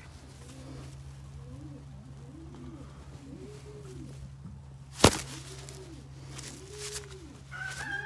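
Pigeons cooing: a steady run of low coos, each rising and falling, a bit more than one a second, over a steady low hum. One sharp knock about five seconds in is the loudest sound.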